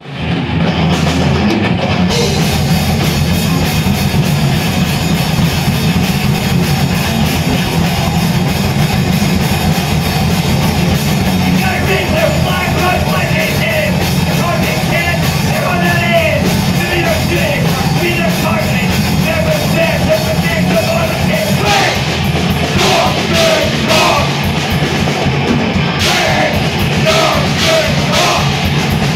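Crossover thrash band playing live: distorted electric guitars and drum kit, loud throughout, with vocals coming in about twelve seconds in.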